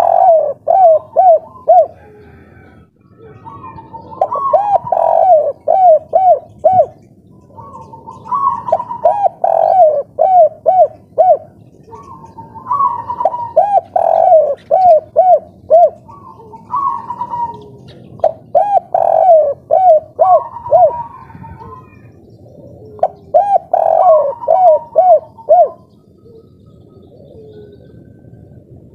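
Spotted dove cooing in the three-note 'kuk 3' song style: loud phrases, each a quick run of coos, repeated every three to four seconds.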